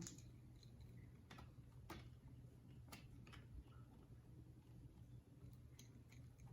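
Near silence with a steady low hum and a few faint, scattered clicks as the small plastic display case is worked apart by hand.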